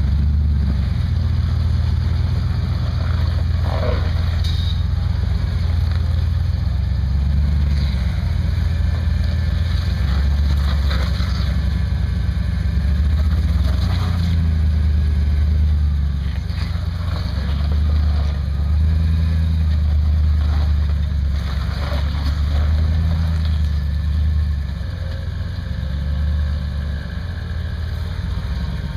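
Rock buggy's engine running at low revs as it crawls over rock ledges, the throttle swelling and easing several times, with the sound settling lower near the end.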